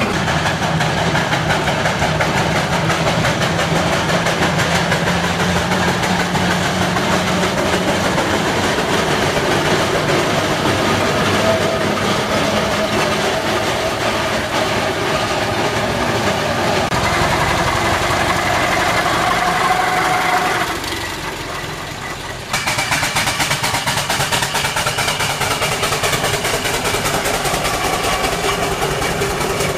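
Steam traction engines driving past one after another, running with a rapid, even rhythmic beat. The sound dips briefly, then cuts to another engine about three-quarters of the way through.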